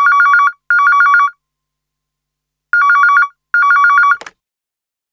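Phone ringtone: an electronic warbling trill in the double-ring pattern, ring-ring, pause, ring-ring, ending in a sharp click about four seconds in.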